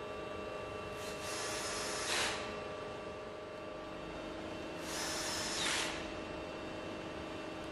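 Cordless drill-driver run twice, each run about a second long and ending in a brief louder burst, driving the screws that bolt a pump's split suction chamber back together. A steady faint hum runs underneath.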